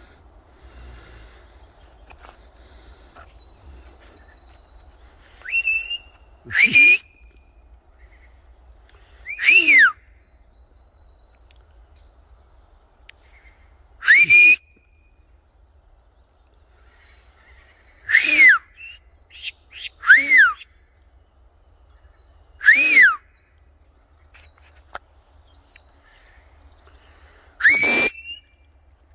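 White-bellied caiques giving loud whistled calls, each rising then falling in pitch. About seven calls come several seconds apart, with a few shorter chirps between them.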